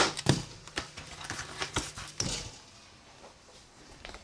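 A series of light knocks and clicks, about two a second, over a low steady hum that stops about two seconds in.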